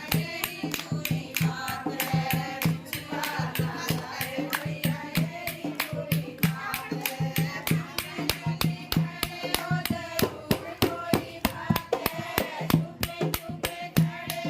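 Singing over a fast, steady beat of jingling percussion.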